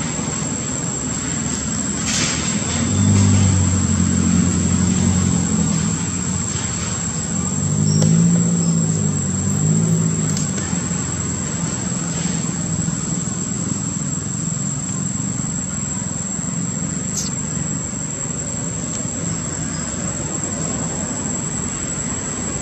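Steady outdoor background with a low motor hum of passing vehicles that swells twice, about three and eight seconds in, under a constant high-pitched whine.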